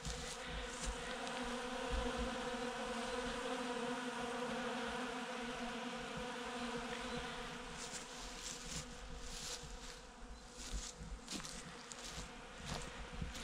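Honeybees buzzing close by at ground level: a steady hum with several overtones that fades after about seven seconds. Brief clicks and knocks come in the second half.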